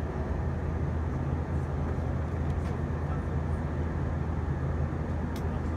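Steady low drone of an Airbus A321's engines and rushing air, heard inside the passenger cabin in flight, with a faint click near the end.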